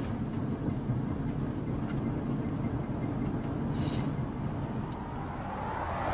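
Steady low rumble of a moving car's engine and road noise, heard from inside the cabin, with a brief hiss about four seconds in and a swell rising near the end.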